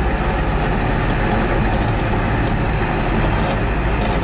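Truck engine running and tyre and wind noise heard from inside the cab while driving: a steady low drone under an even hiss.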